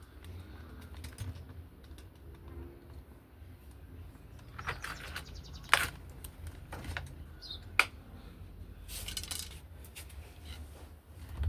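Scattered sharp clicks and knocks over a low steady hum, with a short high chirp about seven and a half seconds in.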